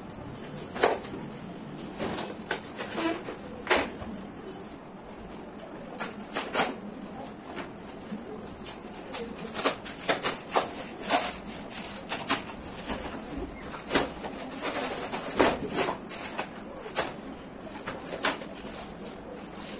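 Flat-pack cardboard box being opened by hand: irregular rustles, crackles and scrapes of the cardboard flaps, with sharp knocks scattered throughout.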